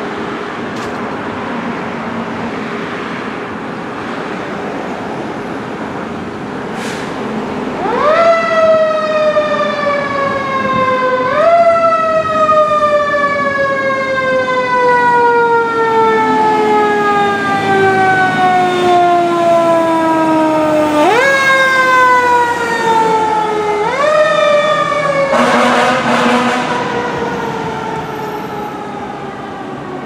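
Fire truck siren: after some seconds of engine and traffic noise, it winds up quickly in pitch and then falls slowly. It is wound up again three more times, the longest fall lasting about ten seconds. A short loud burst of noise comes near the end as the siren fades.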